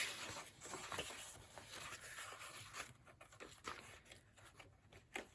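Faint rustling and soft crinkling of paper as the brittle pages of an old, coverless Bible are turned and handled, strongest in the first second and then fading to scattered small ticks.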